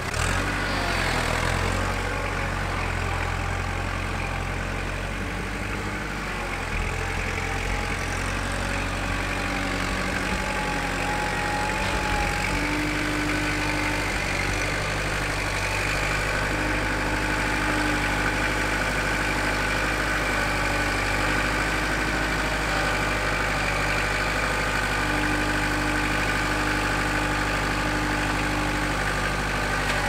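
Kubota L4760 tractor's diesel engine running steadily while it works its front-loader grapple, with a higher whine that comes and goes over the second half.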